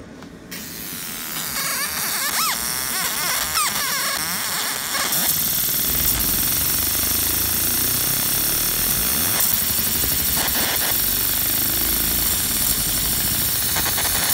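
Fiber laser engraver burning a hatch fill into 6061 aluminum: a loud, steady hiss of the beam on the metal with a few crackles, starting about half a second in and growing fuller about five seconds in. A few wavering whistles sound in the first few seconds.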